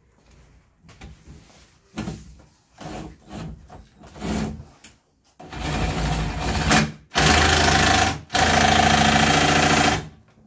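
A power driver running in three runs of a second or more each in the second half, the last two the loudest, tightening the mounting of a motorcycle delivery box. Light handling clicks come before it.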